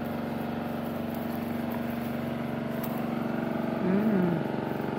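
A steady motor drone, like an engine running at an even speed. About four seconds in, a short hummed voice rises and falls over it.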